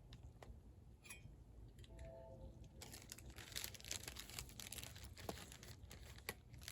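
Faint crinkling and tearing of a plastic flavor packet from instant soup as it is handled and opened, in scattered bursts that are busiest in the middle.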